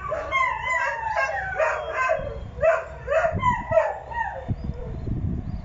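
Several dogs howling and yipping together in overlapping calls, one long howl falling slowly in pitch through the first half; low rumbles come and go in the second half.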